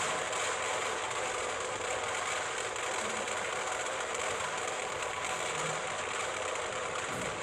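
Firecrackers packed inside a burning effigy going off in a dense, continuous crackle, with no break.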